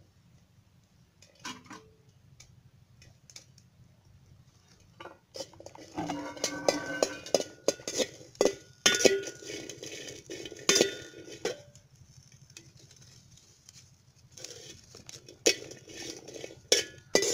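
Metal spatula scraping and clinking against a metal cooking pot as green chillies are stirred in it. The clinks come in two quick, dense spells after a mostly quiet start.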